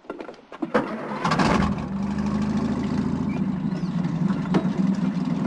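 Sherman tank engine starting: a sharp start about a second in, then the engine catches and settles into a steady, even run.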